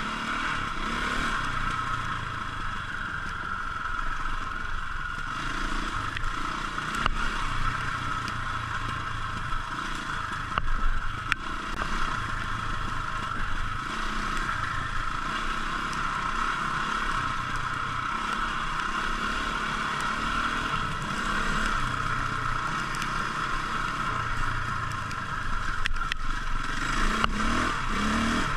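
KTM 450 single-cylinder four-stroke dirt bike riding a muddy green lane, the engine note swelling and easing as the throttle is worked, with occasional knocks and clatter from the bike over the rough track.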